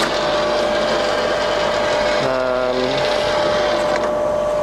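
Colchester Triumph 2000 centre lathe running with its spindle in the lowest speed, 25 rpm: a steady motor and gearbox hum with a constant whine.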